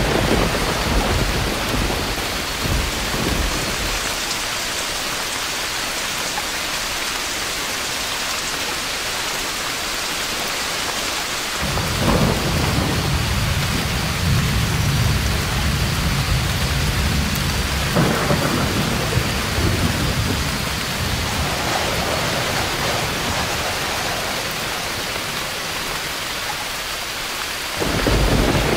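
Steady heavy rain with rolls of thunder: a rumble at the start, a long one from about twelve seconds in lasting some nine seconds, and another beginning near the end.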